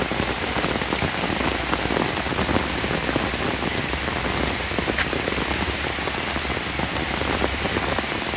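Heavy rain falling steadily on trees and leaf-covered ground, an even hiss of countless drops.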